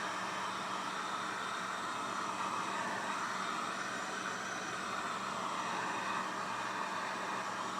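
Wagner electric heat gun running steadily: a continuous rush of blown air with a faint low hum underneath, the rushing pitch wavering slightly.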